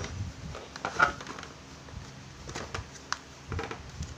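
Handling noises: a few clicks and knocks as a cordless impact driver and its battery pack are taken out of a moulded plastic carrying case. The loudest is a short clack about a second in.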